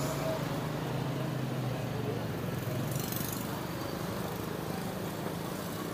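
Steady low hum of restaurant kitchen background noise with faint voices; the hum eases off about halfway through.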